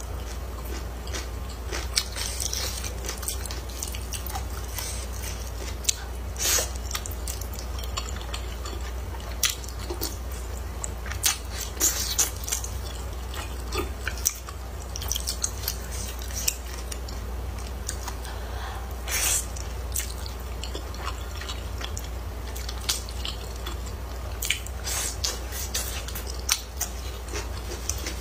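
Close-miked eating of thick noodles in chili sauce: slurping and wet chewing, with many short sharp mouth clicks and smacks throughout and a few longer slurps, the loudest about nineteen seconds in. A steady low hum lies underneath.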